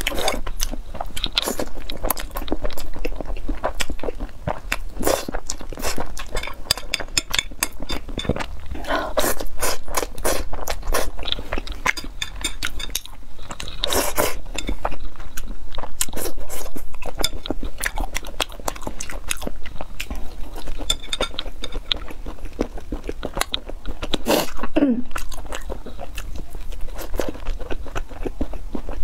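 Close-up mouth sounds of a person eating spaghetti: chewing, with many quick wet clicks and crunches.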